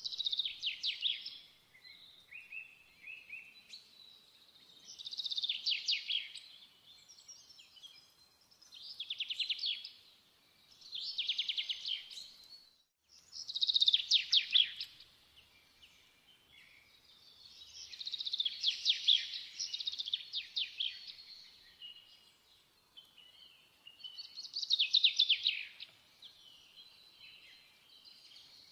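A songbird singing in short, rapidly trilled phrases, each about a second long, repeated every few seconds with some quieter chirps between them.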